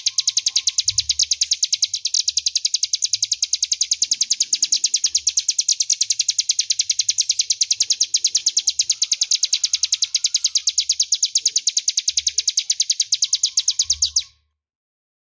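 Ciblek Gunung singing its clear, loud 'ngebren' trill: a long, fast run of evenly repeated high notes, about ten a second, that stops abruptly near the end.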